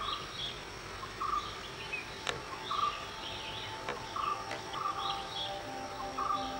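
Forest birds calling, short chirps repeating every second or so with higher warbling calls between them, over a steady insect drone. Two sharp clicks stand out in the middle.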